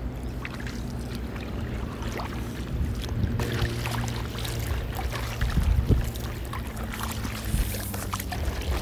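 Stand-up paddleboard paddle strokes through calm water, with small splashes and drips off the blade, over a steady low rumble of wind on the chest-mounted phone's microphone.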